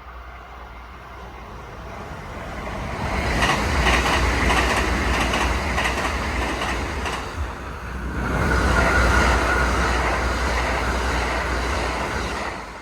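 A Kintetsu Nagoya Line electric train passing over a level crossing, its wheels clattering rhythmically over the rail joints. The sound builds up over the first few seconds, dips briefly about two-thirds of the way through, swells again, then fades near the end.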